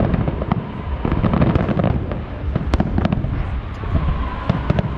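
Fireworks show in full swing: a dense, continuous barrage of booms and sharp crackling reports over a steady low rumble.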